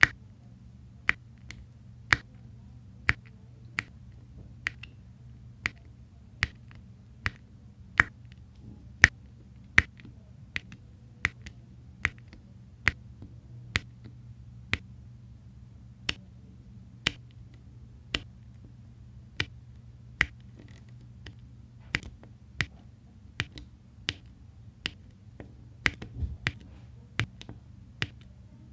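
Round resin diamond-painting drills being pressed one by one onto the adhesive canvas with a drill pen: sharp little plastic clicks, about one a second and unevenly spaced, over a low steady hum.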